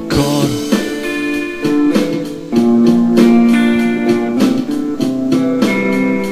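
Guitar playing chords in an instrumental passage of a song, with no singing; the chords change every second or two.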